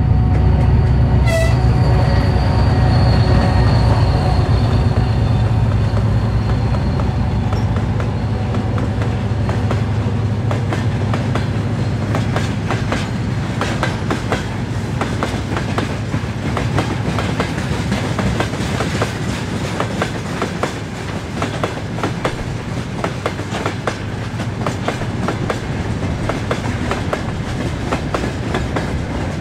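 2TE10L two-section diesel locomotive working past at the head of a long freight train. Its engine drone is loudest in the first few seconds, then gives way to a rapid run of wheel clacks over rail joints as the loaded wagons roll by.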